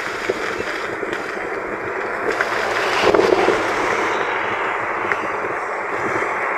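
Steady rush of wind and road noise from a moving car, with wind buffeting the microphone and a brief swell about three seconds in.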